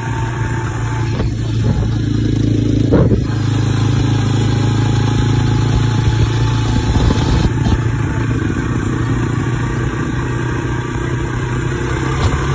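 Honda Fourtrax 300 ATV's single-cylinder four-stroke engine running steadily, with a short louder knock about three seconds in.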